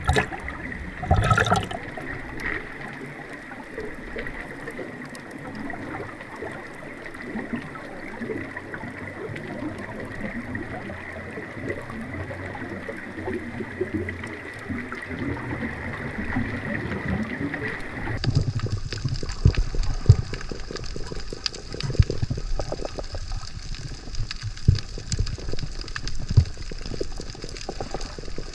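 Water heard through a submerged camera: a steady muffled wash with a faint steady high tone, with a couple of sharp splashes in the first two seconds. About 18 seconds in the sound changes abruptly to a duller wash with irregular low knocks.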